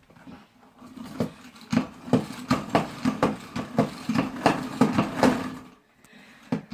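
A plastic spin mop being worked in a quick rhythm, with about two or three clacks a second over a steady whir as the mop head spins. The spinning stops shortly before the end.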